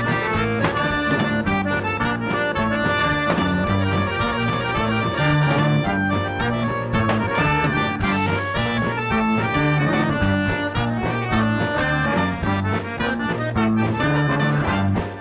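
Live band music, an instrumental passage between sung verses of a swing-style song, over a stepping bass line.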